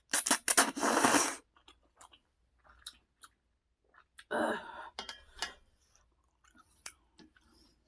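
Close-miked eating sounds: a loud noisy burst lasting just over a second at the start, a shorter one a few seconds later, and quiet chewing and mouth clicks in between.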